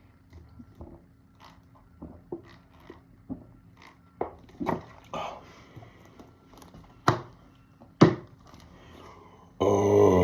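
A person gulping carbonated cola straight from a 2-liter bottle: a string of short, uneven swallowing sounds. Then a loud, drawn-out burp begins near the end.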